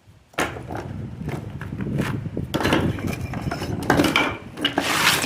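Masonry work: metal tools scraping and clattering against mortar and stone, with repeated sharp knocks, starting suddenly about half a second in.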